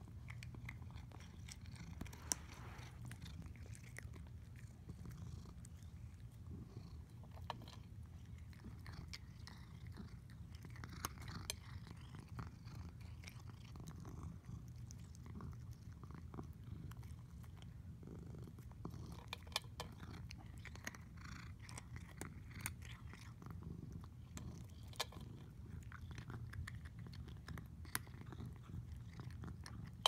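A domestic cat purring steadily while chewing dry kibble, with many short crunches of chewing over the continuous low purr.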